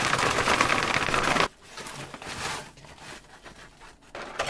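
Fried potato chips rattling hard inside a paper bag as it is shaken to coat them with seasoning powder, stopping about one and a half seconds in. Softer paper rustling and chips sliding follow as the bag is tipped and the chips are poured out onto a plate.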